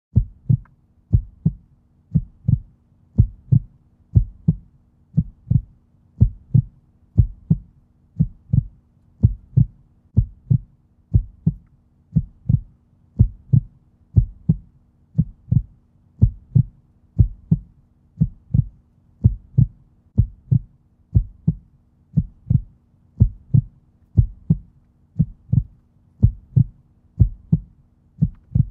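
Heartbeat sound laid over as a soundtrack: a steady lub-dub double thump about once a second, over a faint low hum.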